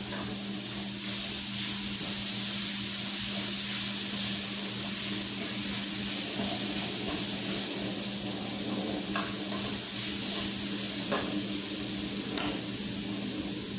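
Tomato, onion and garlic sauce sizzling in a hot pan, a steady frying hiss, with a few light knocks of stirring in the second half.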